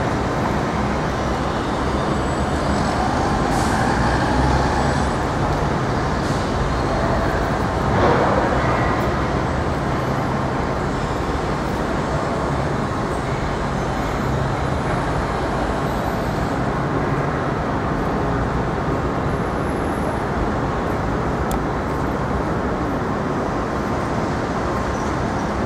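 Steady city street traffic: the rumble of passing road vehicles, with a brief louder swell about eight seconds in.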